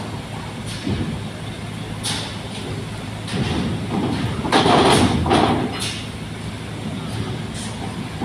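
Cars driving off a ferry, engines running over a steady low hum. The loudest pass comes around the middle.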